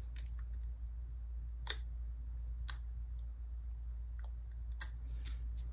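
Handful of light, sharp clicks spaced irregularly a second or so apart as paper stickers and planner pages are handled, over a steady low hum.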